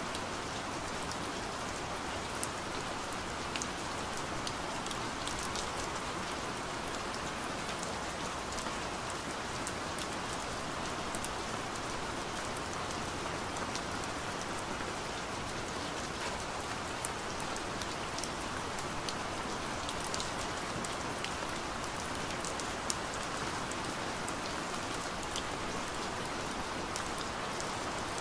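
Steady rain, with scattered individual drops ticking sharply through the even hiss.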